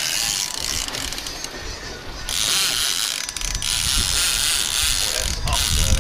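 Big-game trolling reel ratcheting and clicking steadily as a hooked fish is fought. The clicking grows louder about two seconds in.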